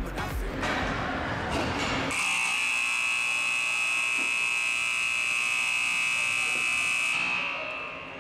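Arena buzzer sounding one long steady buzz, starting about two seconds in and lasting about six seconds before fading out, over a short stretch of rink noise and voices at the start.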